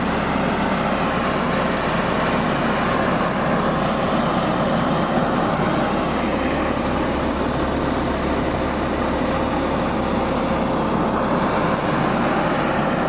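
Parked truck's engine running with a loud, steady rumble and a constant whine over it, while it drives the air compressor to fill the air system.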